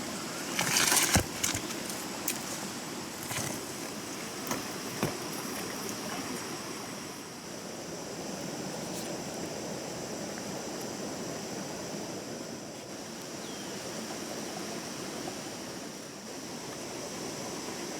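Stream water flowing steadily. A rustling burst about a second in and a few sharp clicks over the next few seconds break through it.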